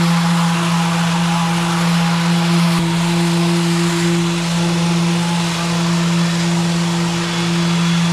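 Random orbital sander running steadily on wood, a constant motor hum under a dense sanding hiss, with its dust-extraction hose attached.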